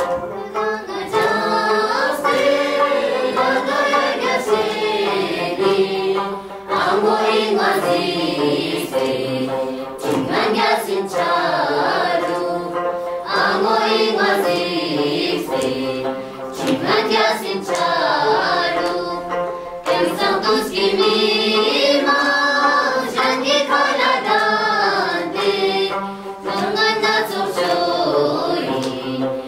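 A mixed group of children singing a song together in long, ornamented phrases with short breaks between them, accompanied by a plucked dranyen, the long-necked Himalayan lute.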